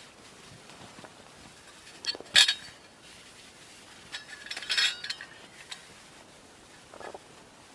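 Cookware and utensils being handled: a few separate clinks and knocks. The loudest is about two and a half seconds in, and a short ringing clatter follows around five seconds.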